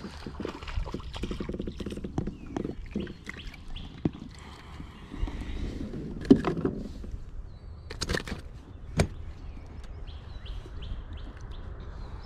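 Knocks and rustling from gear being handled in a kayak over a low steady rumble, with sharper knocks about six, eight and nine seconds in and a quick run of light ticks near the end.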